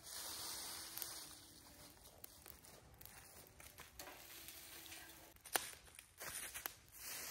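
Dry leaves and twigs rustling as they are gathered by hand, then sticks dropped onto a small wood fire in a metal fire bowl, with scattered sharp snaps and crackles.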